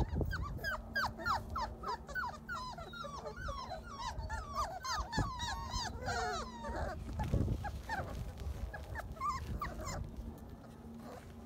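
Labrador retriever puppies whining and yelping: a quick run of short, falling cries, about three a second, that thins out after about seven seconds.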